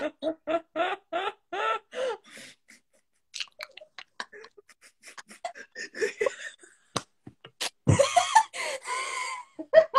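Women laughing hard, with a rhythmic ha-ha cackle over the first couple of seconds, then scattered giggles, and a louder, noisier burst of laughter about eight seconds in.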